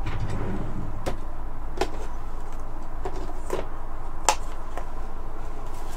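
A few light, scattered clicks and taps from small plastic ink pads being picked up and handled, over a steady low hum.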